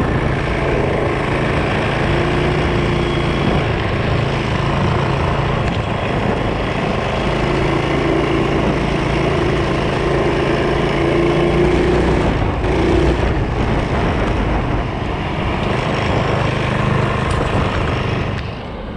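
Predator 212 single-cylinder four-stroke engine on a Chinese ATV with a torque converter, running steadily under way. The sound drops off shortly before the end.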